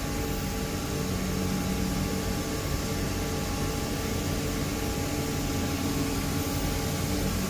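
CNC milling machine running steadily, machining case-hardened, tempered steel of 58 HRC; a constant machine hum with several held tones.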